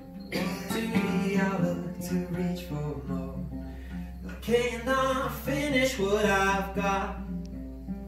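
Acoustic guitar played live, with a voice singing over it in two phrases: one through the first three seconds and another from about four and a half to seven seconds in.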